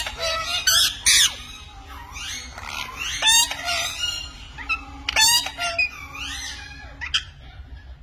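Pet parrots squawking: several loud, harsh calls with a fast warbling pitch, with softer chattering between them.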